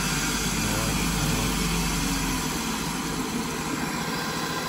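Old three-phase electric motor running on a variable-frequency drive fed from single-phase 220 V: a steady mechanical hum. Its lowest hum drops away about halfway through.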